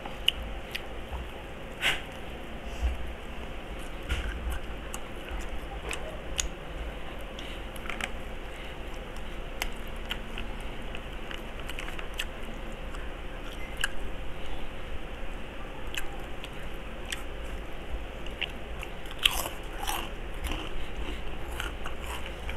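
Close-up crunching and chewing of crispy fried pork: chicharon and lechon kawali being bitten and chewed, with sharp irregular crunches and a louder cluster of crunches near the end.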